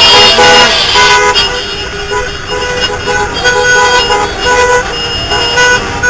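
Celebratory honking from scooter and car horns in a street parade. It is loud and dense for about the first second, then thins to scattered short toots over traffic noise.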